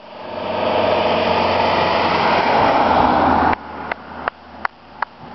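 A van approaching on the road, its engine and tyre noise growing steadily louder before cutting off suddenly about three and a half seconds in. After that, faint short ticks at an even pace, about three a second.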